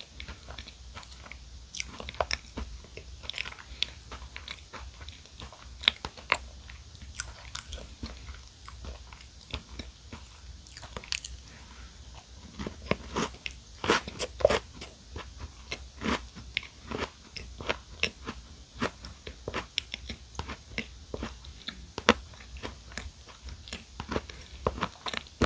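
Close-miked eating of a chocolate-shelled mini chocolate cupcake: a steady run of crisp clicks and crackles from biting and chewing. The crunching comes thickest just after a fresh piece goes into the mouth about halfway through.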